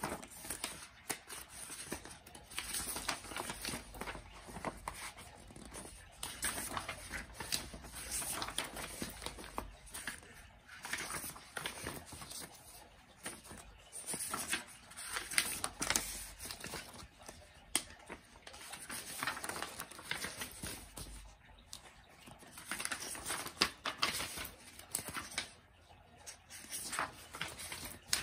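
Sheets of newspaper-style paper rustling and crinkling as a stack of pages is handled and leafed through, in irregular bursts with occasional small sharp clicks.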